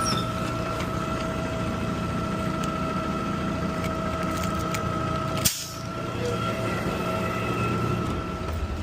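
Garbage truck running, heard from inside the cab: a steady engine rumble with a steady high whine over it. There is a sharp click about five and a half seconds in, after which the sound dips briefly before settling again.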